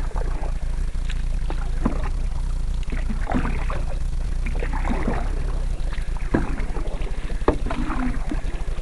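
Canoe paddle strokes in the water: irregular splashing and dripping with occasional knocks. A steady low rumble runs underneath.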